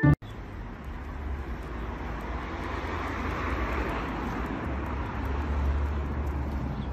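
Outdoor street background: a steady wash of distant road traffic noise.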